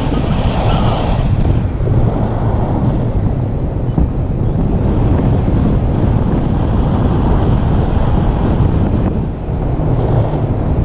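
Steady, loud wind rushing over the microphone of a pole-held action camera on a tandem paraglider in flight, a low rumbling buffet of airflow.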